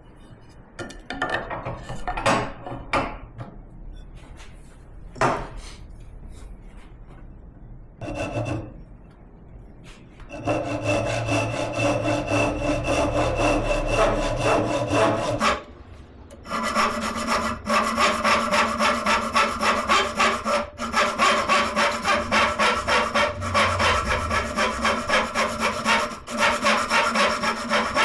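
A handsaw cutting wood in rapid, even back-and-forth strokes, with a short pause partway through. It is preceded by a few brief scrapes and knocks.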